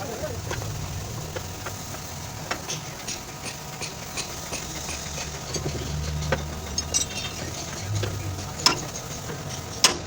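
Scattered light clicks and knocks of tools being handled during car body repair, with two sharper knocks near the end, over a low steady rumble.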